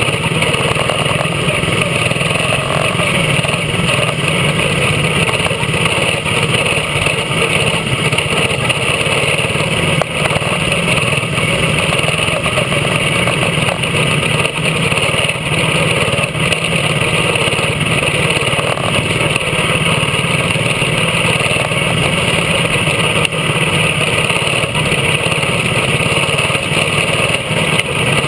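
Quarter midget race car's small single-cylinder engine running steadily at racing speed, heard up close from on board the car, with the engines of the other quarter midgets around it.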